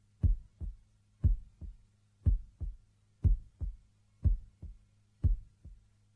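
Slow heartbeat sound effect: a paired low thump, lub-dub, about once a second, the first thump of each pair louder, over a faint steady low hum.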